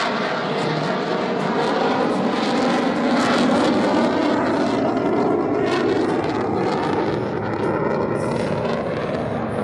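F-35A Lightning II's afterburning turbofan jet engine running as the fighter flies its demo. It is a loud, continuous rumble that swells a little about three to four seconds in, then eases slightly.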